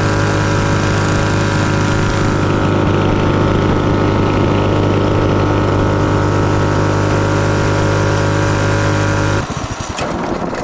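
Small single-cylinder mini bike engine running at a steady high speed, holding one pitch, then dropping off to a slower, uneven beat about nine seconds in as the throttle is let off.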